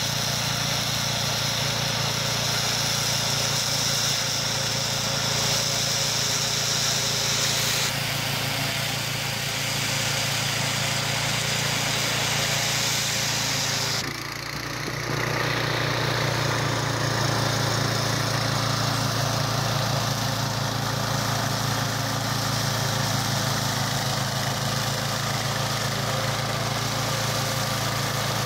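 Small petrol engine of a walk-behind rotary mower running steadily under load as it cuts through long rough grass, with a short dip in level about halfway through.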